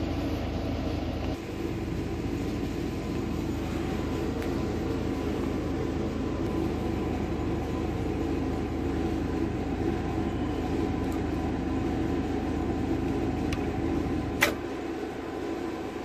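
Steady low mechanical drone, with a single sharp click near the end.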